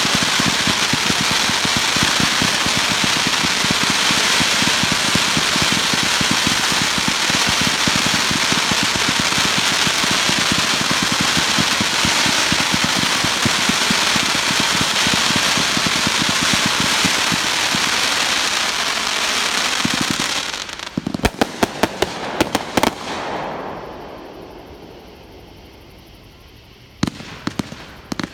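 Fireworks display: fireworks fired from the ground send out a dense, unbroken stream of rapid pops for about twenty seconds. Then come a string of separate sharp bangs, a fading lull, and a sudden loud bang near the end.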